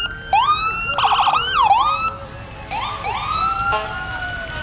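Emergency vehicle sirens sounded in short rising whoops, with a quick up-and-down warble about a second in and a longer falling tone near the end, several of them overlapping.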